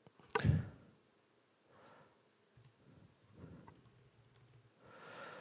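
Quiet room tone with a short, soft noise about half a second in and a few faint small sounds after it.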